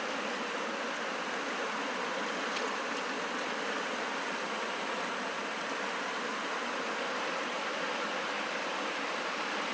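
Mountain stream water rushing, a steady even rush with no change in level.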